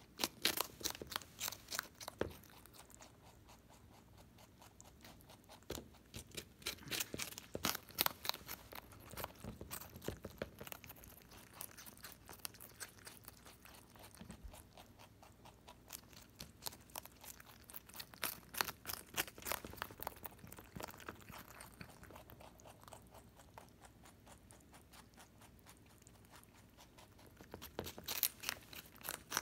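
Holland Lop rabbit chewing a raw cabbage leaf: quick, crisp crunching in runs of rapid bites, with short lulls between them.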